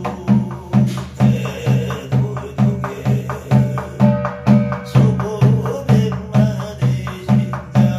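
Korean barrel drum (buk) struck in a steady, even beat, a little over two strokes a second, under a man's chanted sutra recitation (gyeong reading) for a gosa blessing rite.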